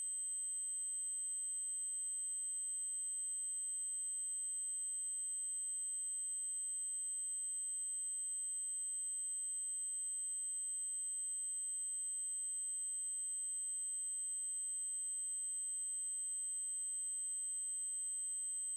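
Steady, unbroken high-pitched 8192 Hz triangle-wave test tone.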